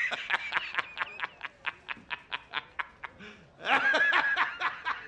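A man laughing hard and uncontrollably: a rapid string of short, high 'ha' bursts, about five a second, rising into a louder, long, high-pitched shriek of laughter about three and a half seconds in.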